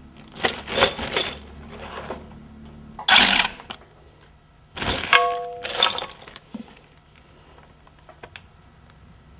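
Metal engine parts clattering and scraping as they are handled and set down during a V8 teardown, the loudest clatter about three seconds in, with a short metallic ring just after five seconds.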